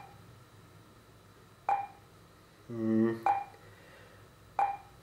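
Three short, sharp taps of a fingertip on a laptop's touchscreen, each over a second apart, with a brief low hummed "mm" from a man's voice just before the second tap.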